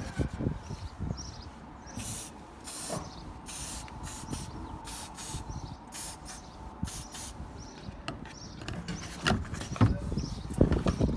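Aerosol can of penetrating fluid sprayed in a run of short hissing bursts onto the head screws of a viscous fan clutch, loosening the seized screws. A few sharp knocks follow near the end.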